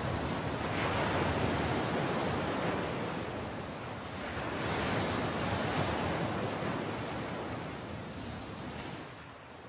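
Ocean surf: waves washing in and drawing back in slow swells every few seconds, fading out just before the end.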